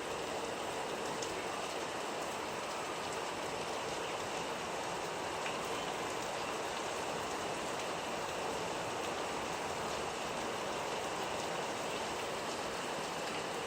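Steady rain falling, an even hiss of drops on surfaces with a few single drops ticking now and then.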